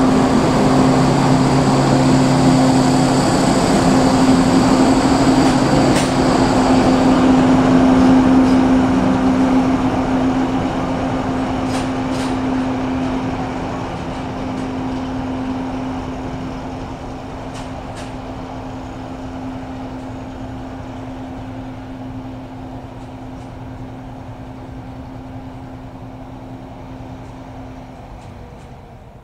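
Class 721 diesel locomotive hauling a GWTR diesel multiple unit away, its engine a steady hum that fades gradually as the train pulls off. A high whine dies out about seven seconds in, and there are a few sharp clicks.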